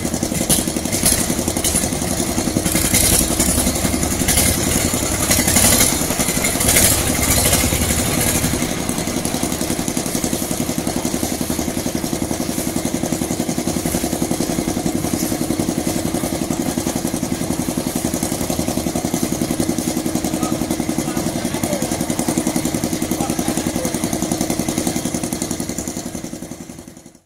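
Small engine of a concrete mixer running steadily, with clattering over the first several seconds, then even running that fades out at the very end.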